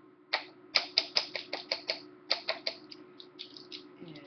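Quick runs of light clicks and scrapes as a measuring spoon is tapped and scraped against a glass carafe, knocking a heaping spoonful off into a salad dressing. The clicks come in irregular clusters of several a second, with short pauses between them.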